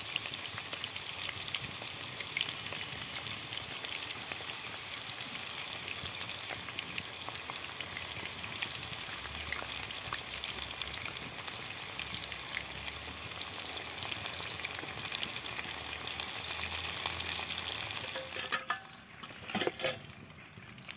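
Marinated chicken pieces deep-frying in hot oil in a karahi, a steady sizzle thick with small pops and crackles. Near the end the sizzle falls away and a few sharp knocks follow.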